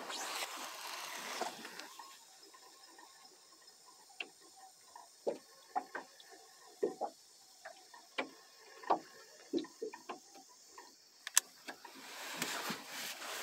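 A fishing rod being cast, with a soft hiss for about two seconds as the line runs out. This is followed by faint, irregular small clicks and knocks, a few a second, as the reel is handled and cranked, with one sharper click near the end.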